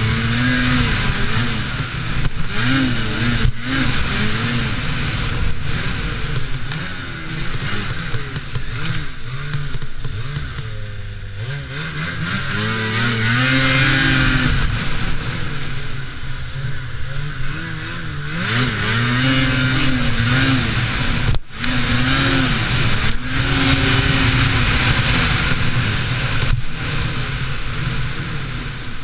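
Lynx Rave RE 850 E-TEC snowmobile's two-stroke twin engine revving up and down under throttle while being ridden, over a steady hiss. The throttle eases off about ten seconds in and the revs climb again a second or two later.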